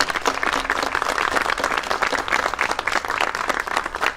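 A small audience applauding steadily.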